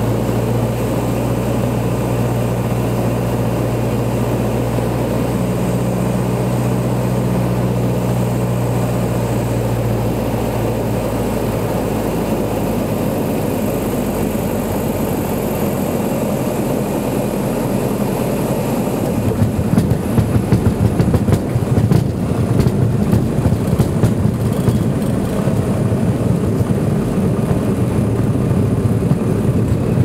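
Single-engine light aircraft heard from inside the cabin: the engine drones steadily on the landing approach, then eases off as the throttle closes. About two-thirds of the way through, a rough, bumpy rumble takes over as the wheels roll along the runway.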